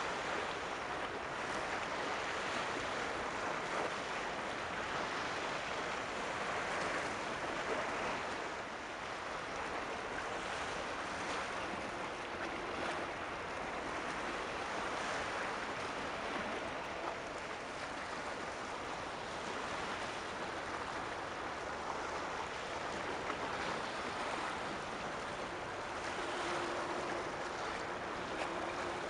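Steady rushing wash of waves on open water.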